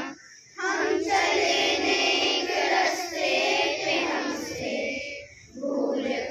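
A group of schoolchildren singing a prayer together in unison into a microphone. The singing breaks for short pauses between phrases, about half a second in and again near the end.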